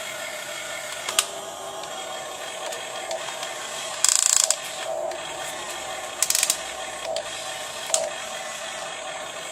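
Small electric motors and gears of a radio-controlled model excavator whining steadily, broken by short ratcheting clatters, the loudest just after four seconds in and others around one, six and eight seconds in.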